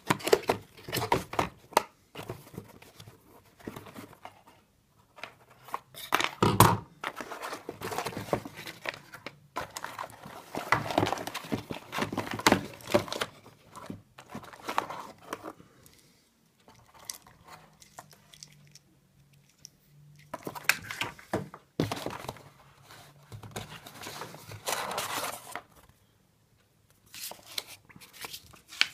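Irregular crinkling and rustling from something being handled, with a few sharp knocks, and quieter pauses about two-thirds of the way through and again near the end.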